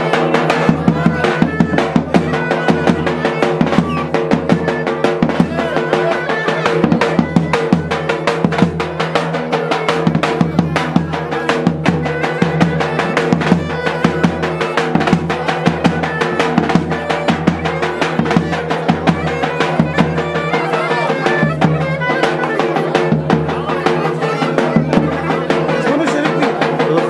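Instrumental music with a steady drum beat under sustained held notes.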